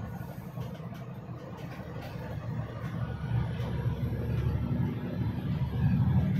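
Steady low rumble of a motor vehicle driving on an unpaved mine haul road, engine and tyre noise mixed, growing louder near the end.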